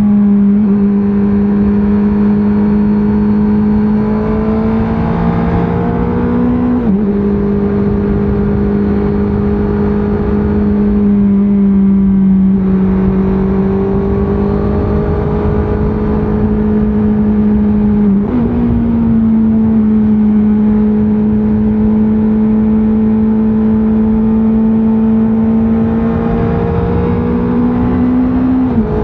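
Honda CBR650R inline-four engine through its stock exhaust, pulling steadily on the road. The engine's pitch steps down sharply about seven seconds in and again near the end, and jumps up about eighteen seconds in, like quick gear changes.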